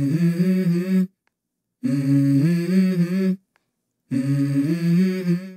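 A low voice humming a short stepping tune, the same phrase three times over with a brief pause between each.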